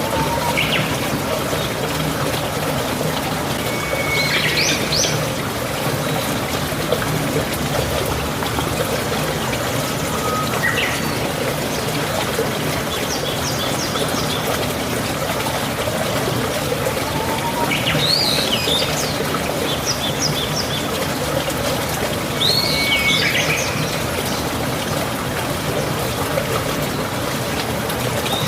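Birds chirping in short calls every few seconds over a steady rushing background noise.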